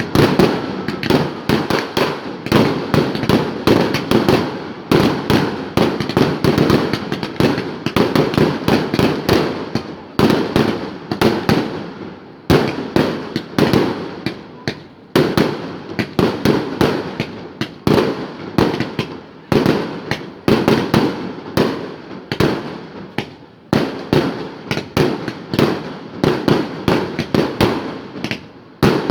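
A fireworks display with dense, rapid bangs and crackling bursts, many a second, and no pause.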